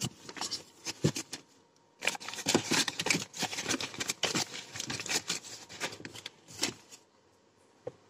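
Paper bags rustling and crinkling as they are handled, in quick crackles with a brief pause about two seconds in, dying away about seven seconds in.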